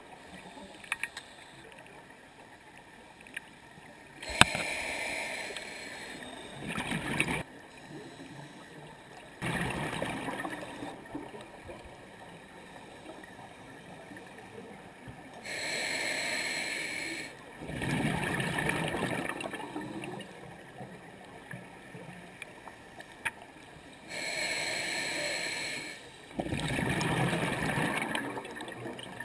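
Scuba diver breathing through a demand regulator: a hissing inhale followed by a burst of exhaled bubbles, repeating about every eight seconds.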